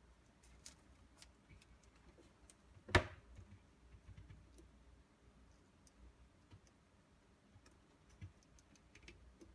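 Scattered small clicks and ticks of cables and a plastic cable tie being handled and fastened, with one sharper knock about three seconds in.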